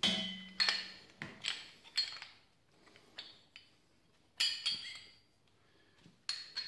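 Loose steel parts clinking and clanking as they are handled and set down. The parts are the gear puller, sheave and bushing just pulled off the fan shaft. There are about eight sharp metallic knocks, each ringing briefly, the first with a lower, longer ring.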